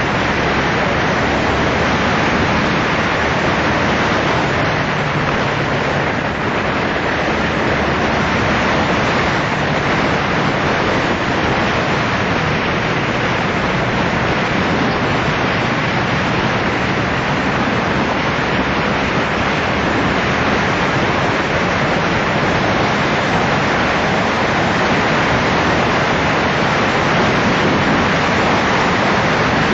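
Steady wind rush over the microphone of a motorcycle at road speed, with the engine running faintly underneath.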